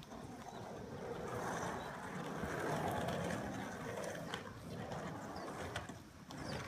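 Surfskate wheels rolling over rough asphalt, a steady rushing noise that swells and eases as the board is pumped and carved.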